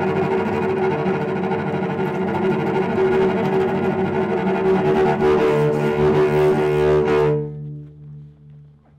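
Film score of bowed strings, with cello prominent, playing sustained notes; the music cuts off suddenly about seven seconds in, leaving one low note that fades away.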